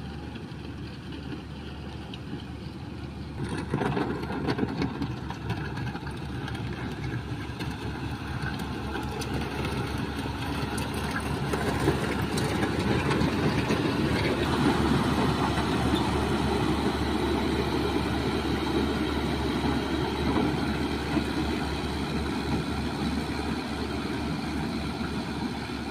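Motor grader's diesel engine running, getting louder about four seconds in.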